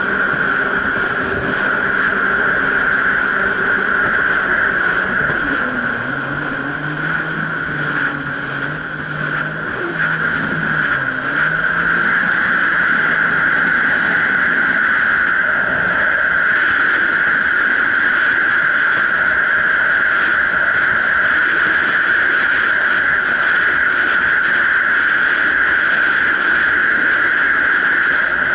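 Jet ski running on the water, with a steady high rushing noise over the engine. The engine note shifts up and down in pitch for a few seconds around the middle.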